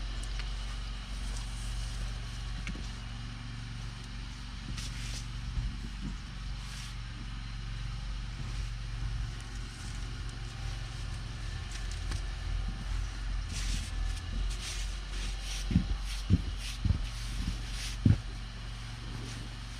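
Engine of a snow-clearing machine running steadily at an even pitch, with a few dull thumps near the end.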